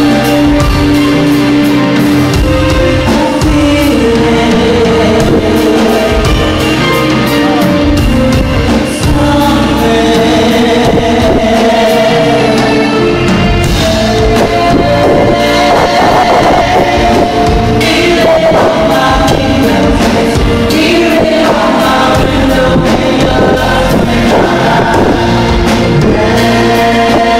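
Loud music with a singing voice holding long, stepping melody lines over a full backing.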